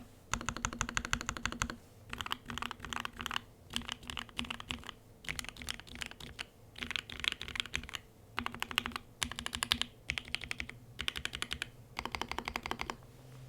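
Typing on a custom mechanical keyboard, an IV Works Av3 Ash with gasket mount, FR4 plate, GMK keycaps and lubed Mauve switches. Fast runs of keystrokes come in bursts of about a second with short pauses between, and the typing stops near the end.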